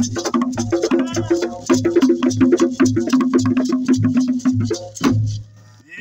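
Traditional Kiganda (Buganda) percussion: cowhide drums keep a steady beat of about two and a half strokes a second, with sharp wooden clicks and gourd shakers rattling over it. The playing stops on a final stroke about five seconds in.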